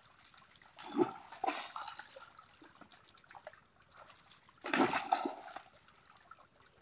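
Water splashing as fish thrash in a crowded seine net and are grabbed by hand in shallow water, with two louder bursts of splashing, about a second in and again around five seconds.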